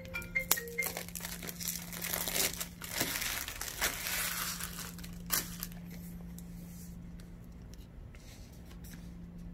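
Clear plastic shrink-wrap being torn and crumpled off a cardboard watch box, crinkling most densely in the first half and thinning to small rustles later. A steady low hum runs underneath, and a short run of melody-like notes ends about a second in.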